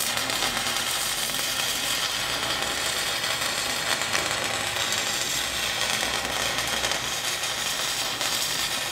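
Stick-welding arc sizzling and crackling steadily as the electrode burns against steel. It strikes up all at once and holds an even level.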